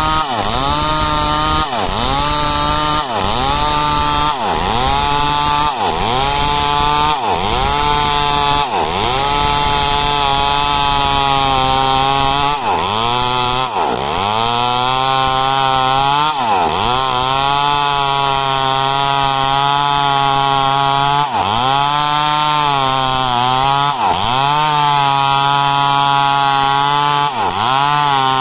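Two-stroke chainsaw ripping lengthwise along a log. The engine note repeatedly dips and recovers as the chain bites under load, about once a second at first, then holding steadier for a few seconds at a time.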